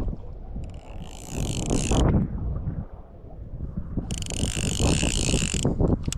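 Strong wind buffeting the microphone, with a fly reel's ratchet buzzing twice as line runs off or is wound in: once about a second in and again about four seconds in.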